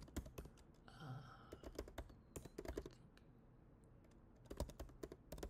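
Faint typing on a computer keyboard: short runs of key clicks with a quiet pause of about a second and a half in the middle.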